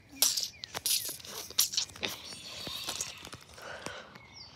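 Crunching and rustling close to the microphone, footsteps on dry grass with clothing and handling noise, loudest in the first two seconds and then quieter.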